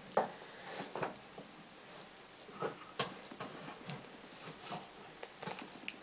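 Fleece being stuffed into a small box by hand: soft rustling with scattered light clicks and taps, and one sharper click about three seconds in.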